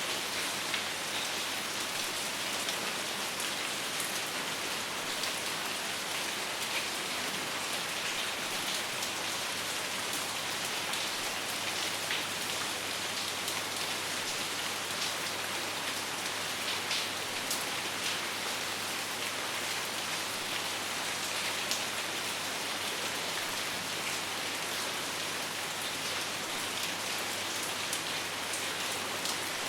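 Steady rainfall, an even hiss with single drops standing out here and there.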